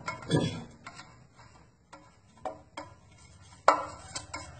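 Scattered knocks and taps of a knife and a plastic jelly tray against a wooden cutting board as the set agar jelly is loosened from the tray's edges and turned out. There are about seven or eight separate knocks, the loudest a little under four seconds in.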